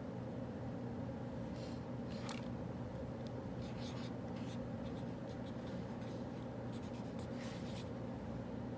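Writing on paper with a pen or pencil: short scratchy strokes in three brief runs, over a steady low hum of room ventilation.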